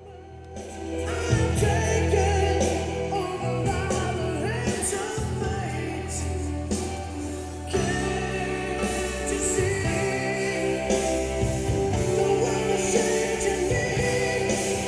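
A song with singing playing from a cassette on a Kenwood KRC-858 car cassette deck, coming up in volume over the first second or so and then holding steady. The tape is running at proper speed on its new drive belt, and the deck sounds good.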